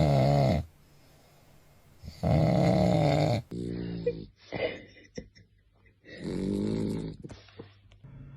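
Dogs snoring: three long, pitched snores of about a second each, a few seconds apart, with softer scattered sounds and clicks between them.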